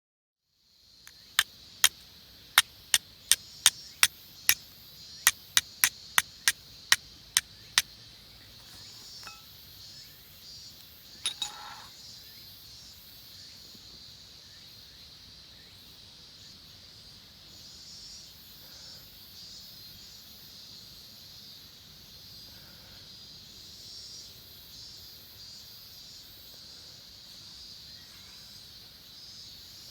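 Steady high chirring of insects outdoors. Over it, a quick run of about sixteen sharp clicks in the first eight seconds, and a short ringing clink about eleven seconds in.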